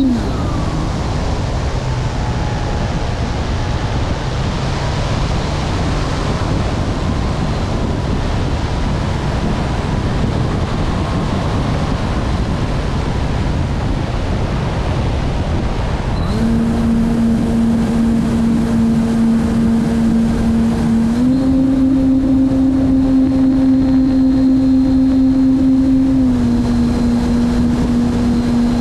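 Wind rushing over the onboard camera of a radio-controlled model airplane gliding with its motor throttled back. About two-thirds of the way through, the motor and propeller come back in with a steady hum that rises in pitch for a few seconds, then eases back down.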